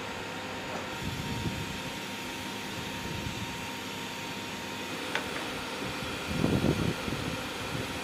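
Steady machinery hum with a faint high tone, like a ventilation or air-conditioning unit running, and a brief louder low rumble about six and a half seconds in.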